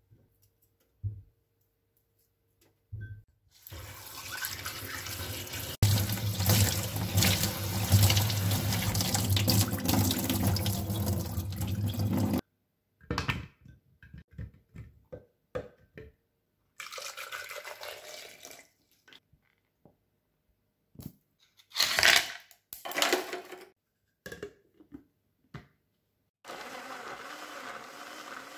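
Tap water running hard into a stainless steel sink for about nine seconds as cherry tomatoes are rinsed, followed by scattered knocks and clatters as the tomatoes go into a plastic blender jar. Near the end a blender runs steadily, puréeing the tomatoes into juice, and cuts off suddenly.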